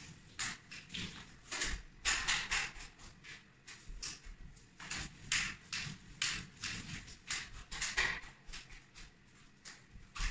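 Facade roller loaded with thick joint compound being worked across a plasterboard ceiling on a telescopic pole: irregular short sticky swishes and light taps, several a second, along with shuffling steps.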